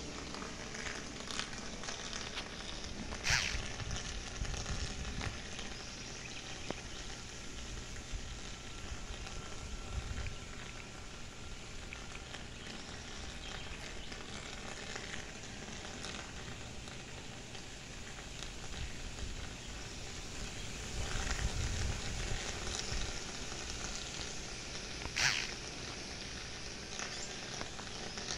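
Outdoor wind ambience: a steady crackly hiss, with low rumbles of wind buffeting the microphone now and then. Two short, sharp noises stand out, one about three seconds in and one near the end.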